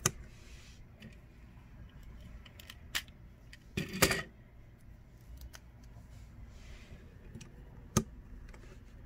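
Plastic Lego bricks clicking and knocking as pieces are pressed on and the model is handled. There are a few sharp clicks spread apart, with the loudest cluster about four seconds in.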